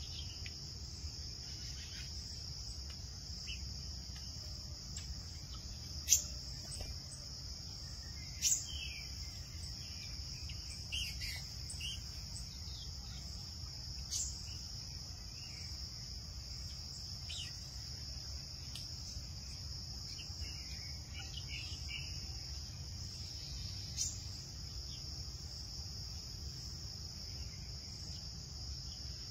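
Steady high-pitched chorus of insects, crickets by the sound, over a low rumble, with a few short sharp chirps breaking through, the loudest about six and eight seconds in.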